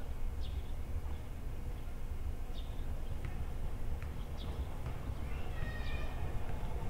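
Low rumble of a Toei 9000 series electric tram moving off slowly in the distance, with a motor whine starting to rise near the end as it approaches. Short high bird chirps come every couple of seconds.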